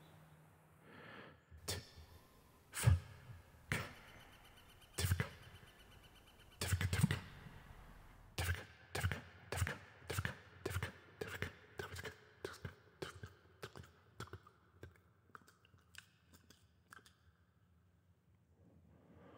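A few scattered knocks, then a run of evenly spaced clicking taps about three a second that grows fainter and dies out.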